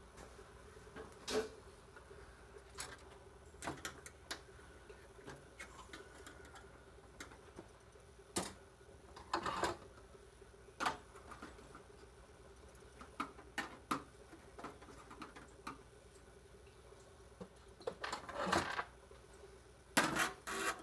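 Scattered clicks, taps and short scrapes of hand tools and small metal parts as a server's aluminium case and circuit boards are taken apart, busier near the end, over a faint steady hum.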